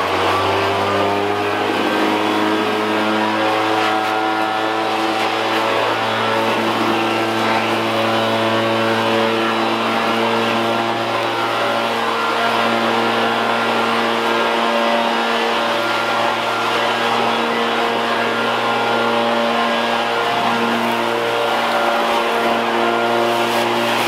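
Stihl BR700 backpack leaf blower's two-stroke engine running steadily, with the rush of air out of the blower tube as it blows dry leaves.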